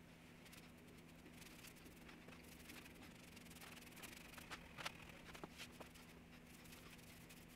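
Faint rubbing of a paintbrush stroking finish across a solid oak panel, with a few light clicks about halfway through over a low steady hum.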